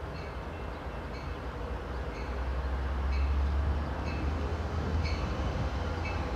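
Bi-level passenger train approaching on the tracks: a low rumble that grows louder through the middle, with a faint ringing repeating about every three-quarters of a second.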